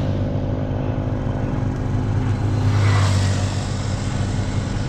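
Motor vehicle engine running steadily while moving, with a louder rushing swell about three seconds in.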